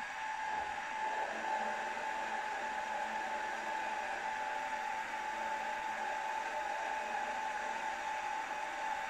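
Drilling machine running steadily with a constant whine as a small bit drills shallow tapping holes into a model steam engine's cylinder block through the end-plate holes.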